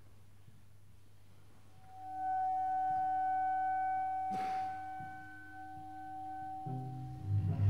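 Live ensemble music starting from quiet: a single high note held steady for about four seconds, a short swish partway through, then low drum notes coming in near the end.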